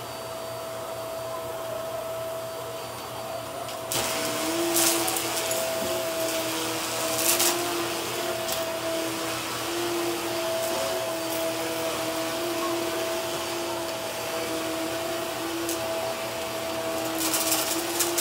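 Vacuum cleaner running on carpet, a steady motor whine over a hiss. About four seconds in it suddenly gets louder, and brief crackles come through it a few times.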